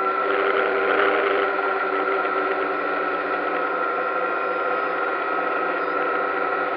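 DJI Phantom quadcopter's motors and propellers whining steadily while hovering and turning slowly, with a brief surge in noise about a second in.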